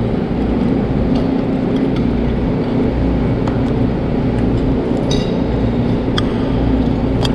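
Steady drone of ship's machinery, a constant low hum and rumble, with a few light clinks of a fork and spoon on a plate.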